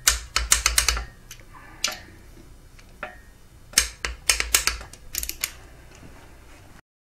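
Socket ratchet on a torque wrench clicking in quick runs as bolts on a Subaru engine's cylinder head are run in and tightened: a fast string of clicks at the start, a single click near two seconds, and another run of clicks in the second half.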